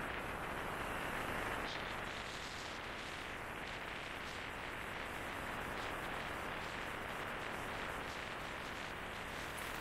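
Steady rush of wind and road noise on the microphone of a motorcycle riding along at speed.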